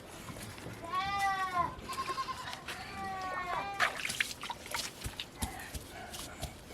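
Goats bleating: about three calls in the first four seconds, followed by scattered clicks and rustling.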